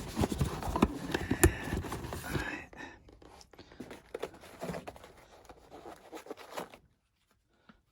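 Handling of a T-slot clamp kit's metal pieces and packaging: a quick flurry of knocks, clacks and scrapes over the first couple of seconds, one sharp click the loudest, then scattered lighter clicks and rustles.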